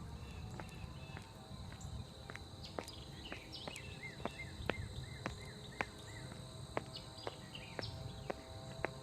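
Birds chirping, with a quick run of short slurred notes in the middle, over a steady high insect trill, broken by a series of sharp clicks and a low rumbling noise throughout.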